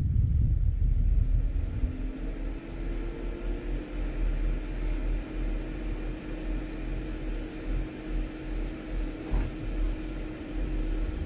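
Low rumble of wind buffeting a doorbell camera's microphone, heaviest at the start and end, with a faint steady mechanical drone that rises slightly in pitch a couple of seconds in and then holds.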